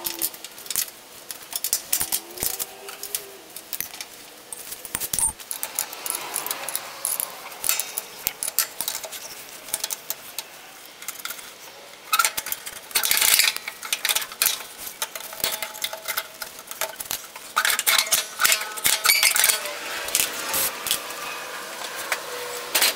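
Hand tools and metal parts clinking and clanking against a riding mower's steel frame and transaxle while the transmission is bolted back in: a run of short, sharp clicks and rattles, with denser bunches of rapid clicking.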